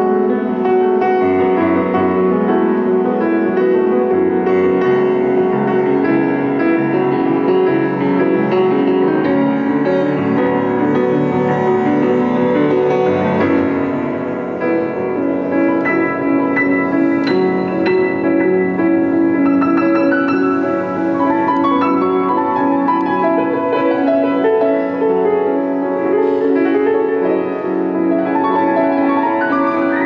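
Grand piano played solo: a flowing contemporary piece with a dense texture of held chords and moving lines, steady in loudness apart from a brief softer passage about halfway through.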